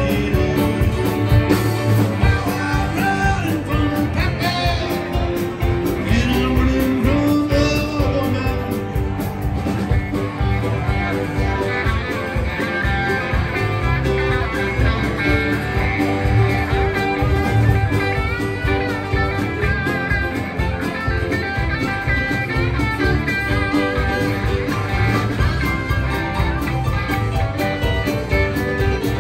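Live country-rock band playing: acoustic and electric guitars, bass and a drum kit keeping a steady beat.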